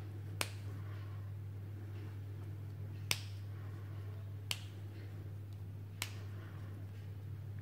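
Plastic linking cubes snapping together as they are pressed into a stick: four sharp clicks, over a steady low hum.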